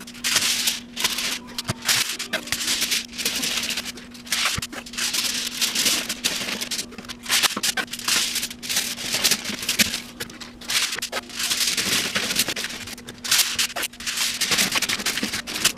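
Aluminium foil crinkling and masking tape being pulled and pressed down by hand, heard as rapid, dense crackling and scratching over a faint steady hum.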